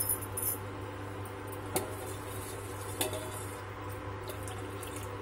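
A steel ladle stirring milk in a stainless steel pot, clinking sharply against the pot a few times, over a steady low hum.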